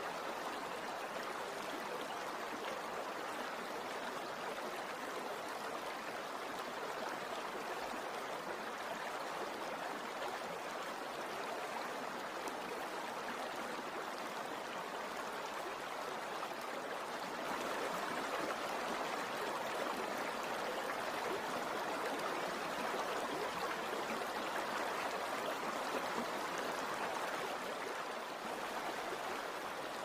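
Stream water rushing steadily over rocks: an even rushing with no drips or splashes standing out, growing a little louder about halfway through and easing back near the end.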